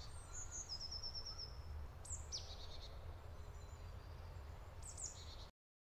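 Faint woodland birdsong: a quick trill of high notes about a second in, and short high calls sliding downward around two seconds and again near five seconds, over a low steady rumble. The sound cuts off abruptly shortly before the end.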